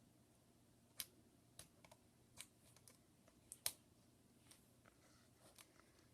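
Sparse, faint clicks and taps of small tools and parts being handled during iPad 2 logic board repair, the sharpest about a second in and twice more around three and a half seconds.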